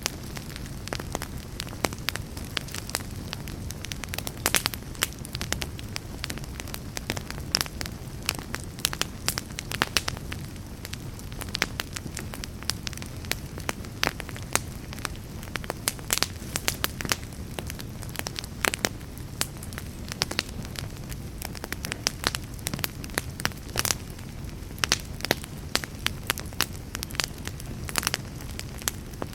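Wood fire burning in a fireplace, with a steady low rumble of flame and frequent sharp, irregular crackles and pops.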